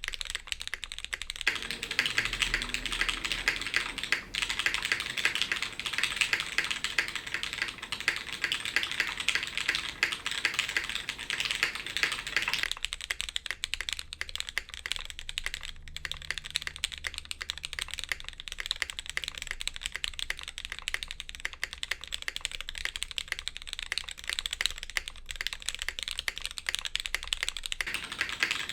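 Continuous steady typing on a custom mechanical keyboard with linear vintage Cherry MX Black switches lubed with Krytox 205g0, an aluminium plate in a friction-fastened case, and DCS-profile keycaps: a dense stream of key clacks.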